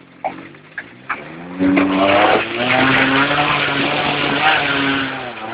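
Suzuki Vitara 4WD engine revving hard about a second and a half in as it drives through deep mud, with the hiss and spatter of mud and water thrown up by the tyres. The engine note holds high and then eases off near the end.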